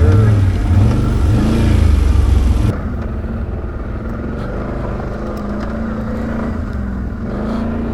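ATV engine running on a trail, its pitch rising and falling with the throttle. About three seconds in it drops to a quieter, steadier running.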